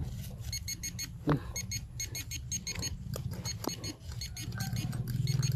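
Handheld metal-detecting pinpointer beeping in rapid runs of short high beeps, about five a second, pausing briefly around the fourth second and starting again near the end. This signals metal close to the probe tip. A steady low hum and scattered clicks run underneath.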